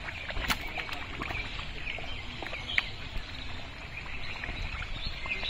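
Small birds chirping over the sloshing and squelching of thick pond mud as a man wades and gropes through it for fish, with a few sharp slaps, the loudest about half a second in.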